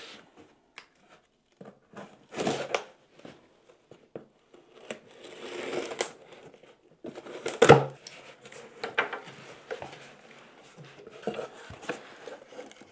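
A folding knife slitting packing tape on a cardboard shipping box, with the tape tearing and the cardboard flaps scraping and rustling open in scattered bursts. The loudest rip comes just past halfway.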